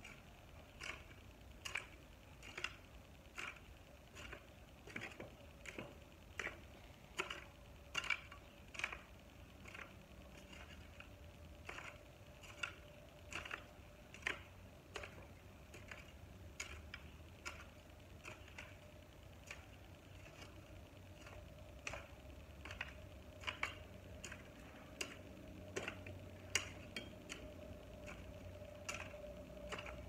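Hoe blade chopping and scraping into soil: short gritty strikes, faint, coming steadily a little more than once a second.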